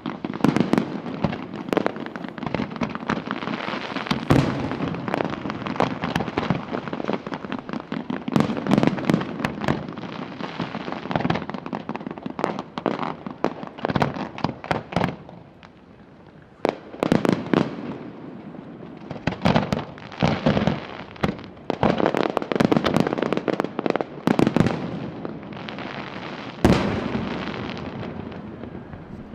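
Aerial fireworks display: rapid volleys of shell bursts and crackling, with a brief lull about fifteen seconds in before further salvos. A single loud bang near the end, its echo fading away.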